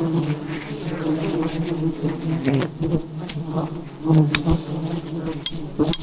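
A dense swarm of wild honeybees buzzing steadily around their hive, with a few sharp clicks over the top.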